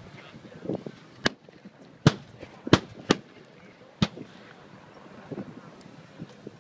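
Civil War–style muzzle-loading field cannons firing during a reenacted artillery bombardment: about five sharp, irregularly spaced reports in the first few seconds, the loudest two close together near the middle.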